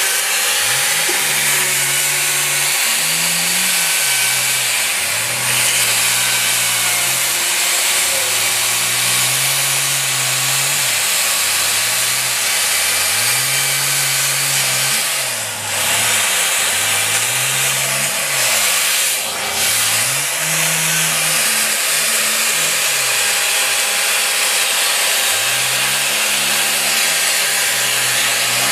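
Petrol chainsaw running continuously as it carves into a log. The engine pitch repeatedly rises and falls every few seconds as the throttle is worked and the chain bites into and clears the wood. The sound dips briefly twice near the middle.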